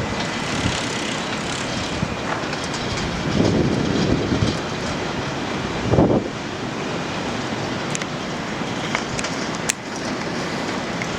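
Heavy storm surf from Hurricane Sandy breaking, with wind: a steady rushing noise that swells about three and a half seconds in and peaks in a sharp surge about six seconds in.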